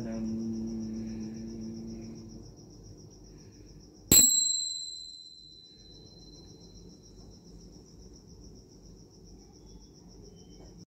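A voice holds a low sung note for the first couple of seconds. About four seconds in, a single bright metallic ding rings out and fades over a couple of seconds. A steady, pulsing cricket chirr runs underneath throughout.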